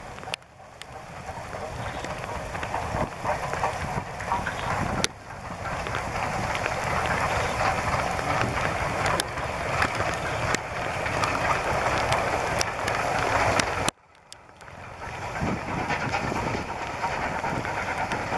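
LMS Royal Scot class 46100, a three-cylinder 4-6-0 steam locomotive, working a passenger train past at speed. The exhaust and wheel noise grows steadily louder, breaks off sharply about two-thirds of the way through, then builds again.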